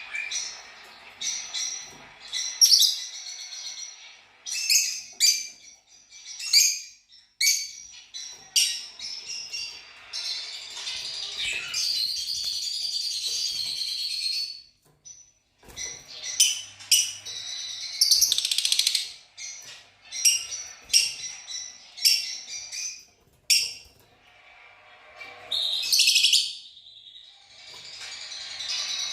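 Fischer's lovebirds chirping, many short shrill calls in quick succession, with longer runs of chattering midway and near the end.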